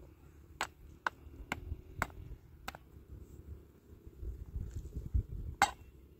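Rocks knocking together as stones are packed around the base of a metal tent pole: five sharp clacks about half a second apart, then a pause and one louder clack near the end.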